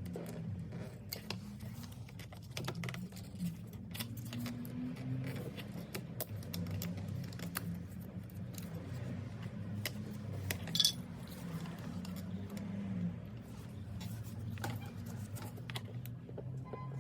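Scattered light clicks and metallic clinks, as of small metal parts or tools being handled, over a low steady hum. One louder, ringing clink comes about eleven seconds in.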